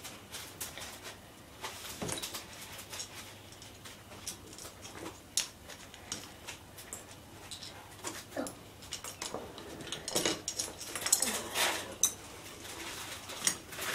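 Small plastic LEGO pieces clicking and rattling as hands rummage through a pile of loose bricks: a string of light, irregular clicks.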